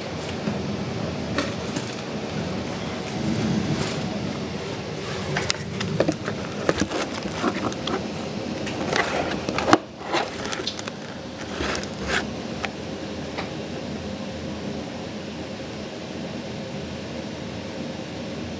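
Steady rain falling, with many sharp crackling drips and splashes, thickest in the middle stretch, over a low steady hum.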